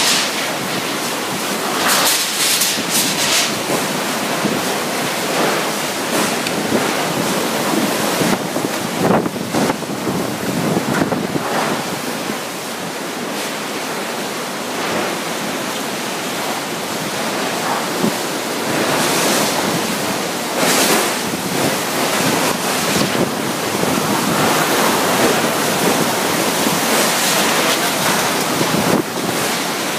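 Super typhoon winds at landfall with wind-driven rain: a continuous loud rushing that surges in gusts every few seconds, the wind buffeting the microphone.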